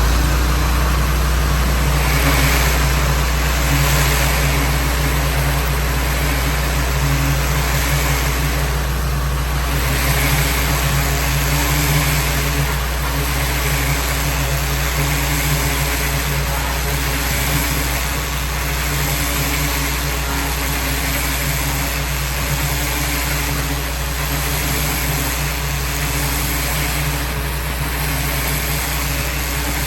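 Pressure washer running steadily, its low engine hum under the hiss of the water jet spraying cladding; the hiss swells and fades every couple of seconds.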